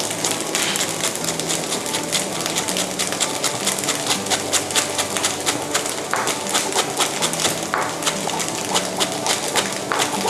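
Kitchen knife slicing spring onions on a wooden cutting board: quick, even chops about three or four a second, picking up about two seconds in.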